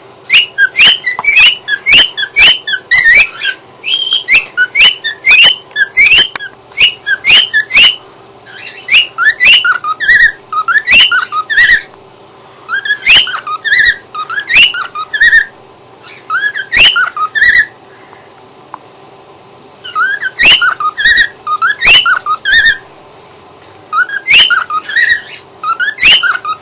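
Cockatiel singing: phrases of loud, high whistled notes that sweep up and down in pitch, broken by pauses of a second or two.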